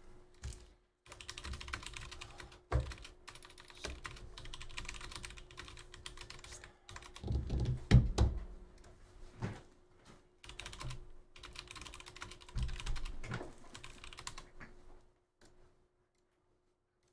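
Typing on a computer keyboard: a fast, uneven run of key clicks with a few heavier knocks, the loudest about halfway through. It stops about two seconds before the end.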